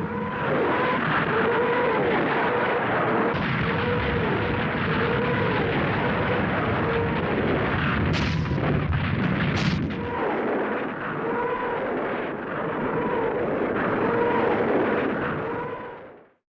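Tracked tank on the move: a steady engine and track rumble with a wavering squeal from the tracks that recurs about once a second. Two brief, sharper clanks come about halfway through, and the sound cuts off suddenly near the end.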